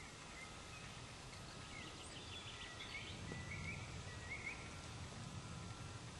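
Woodland ambience: a steady low rumble with a few short, faint bird chirps in the middle.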